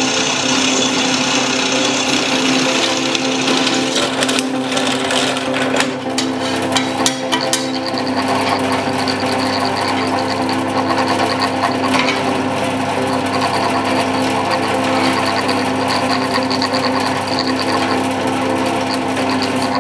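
Benchtop drill press running steadily as its twist drill bit cuts into a steel block, a constant motor hum under the scraping of the cut, with a few sharp clicks and rattles about four to seven seconds in. The bit has just been resharpened and is being tried out.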